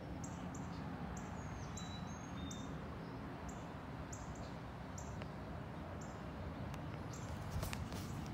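Short high chirps from a small bird repeat every third to half second over a steady, distant low rumble from a high-flying jet airliner. A few sharp clicks come near the end.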